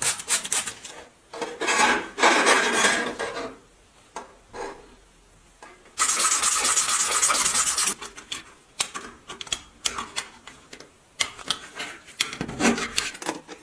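Hand work on metal machine parts: irregular rubbing and scraping strokes with sharp clicks and light knocks, and a steady hiss lasting about two seconds near the middle.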